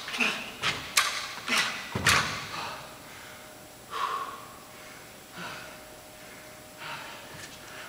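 Dumbbells thudding down onto an exercise mat over a wooden floor during push-up rows: several sharp thuds in the first two seconds, the heaviest about two seconds in, then a few fainter knocks.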